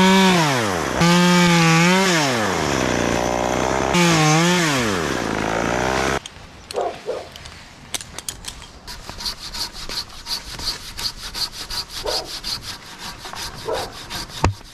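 Chainsaw run at full throttle, dropping to idle and revving back up, then stopping abruptly about six seconds in. After a short pause, a hand pruning saw cuts through wood with quick, even strokes, about five a second.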